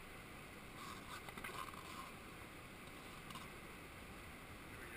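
Faint, even rush of river water around an inflatable raft drifting on a calm stretch, with a few short, slightly louder splashy sounds between about one and two seconds in and again past three seconds.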